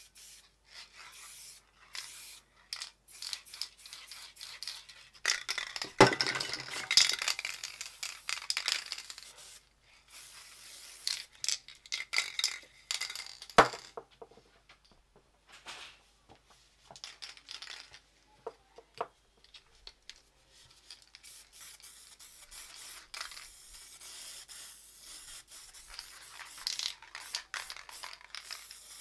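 Aerosol spray paint can hissing in short bursts and longer passes, steadiest over the last third, mixed with the clatter of cans and materials being handled on the table, including two sharp knocks about six and fourteen seconds in.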